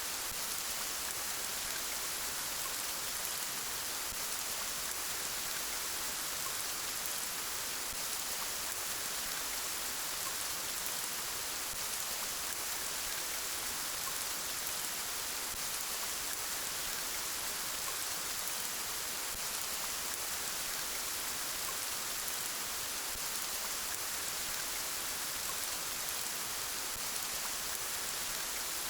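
Steady rainfall, an even hiss of rain with fine drop patter, unchanging in strength.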